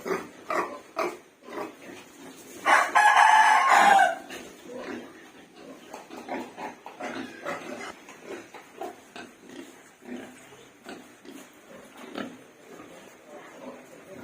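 Rooster crowing once, a loud call of about a second and a half, among many short, repeated calls from chickens.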